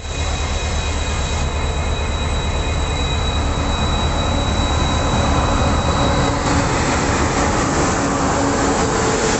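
Express train hauled by an Indian Railways electric locomotive rolling past at close range along a platform: a steady rumble of wheels and motors, with a high-pitched squeal that stops about six and a half seconds in.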